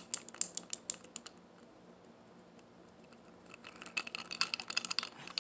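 Ice cubes clinking and rattling in a glass as it is handled: a quick run of sharp clicks for about a second, a pause, then more scattered clinks and knocks near the end.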